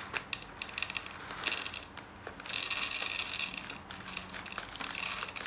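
Dry popcorn kernels poured from a plastic bag into a non-stick frying pan, rattling and clicking on the pan surface. The pouring comes in several spurts, the longest and loudest in the middle.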